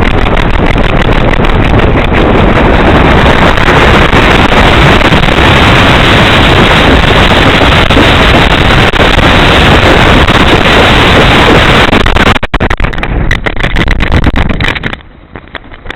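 Loud, steady rush of wind over a small camera strapped to a flying pigeon. It turns choppy a few seconds before the end, then drops away sharply.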